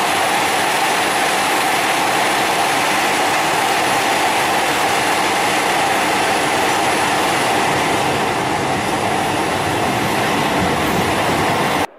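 Italo AGV high-speed electric train running past along a station platform: a steady, loud rushing of wheels and air that cuts off suddenly near the end.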